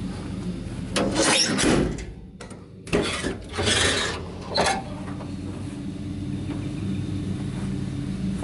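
An engine idling with a steady low drone. Two louder stretches of rushing, scraping noise come about a second in and again from about three to five seconds in.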